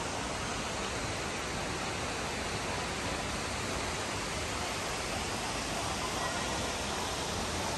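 Steady, even rushing of a large indoor waterfall heard inside a glass conservatory dome, with no distinct events.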